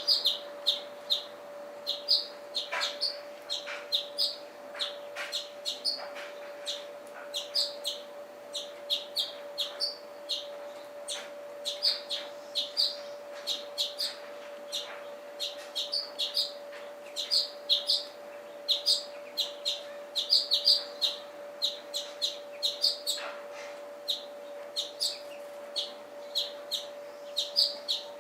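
A flock of small songbirds chirping at a seed feeder: many short, high chirps, several a second and often overlapping, with a steady hum underneath.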